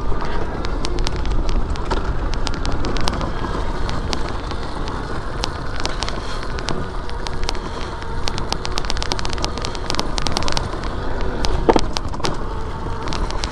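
Motorcycle ridden over a rough forest trail: engine and wind rumble with frequent sharp clicks and crackles from stones and debris.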